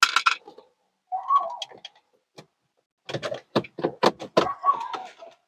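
Plastic clicks, knocks and a couple of short squeaks as the heater and A/C control panel is pulled loose from the dashboard by hand. There is a quick run of sharp clicks from about three to five seconds in.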